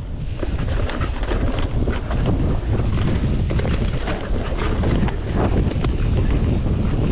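Wind buffeting the action camera's microphone as a steel hardtail mountain bike rolls along a dirt trail, with tyre rumble and many short rattling clicks from the bike over bumps.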